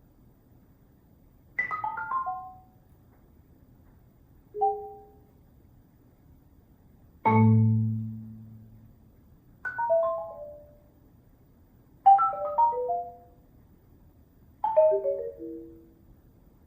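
Solo marimba playing short, quick runs of notes that mostly fall in pitch, separated by pauses, six phrases in all. About seven seconds in, a deep low chord is struck and rings for over a second.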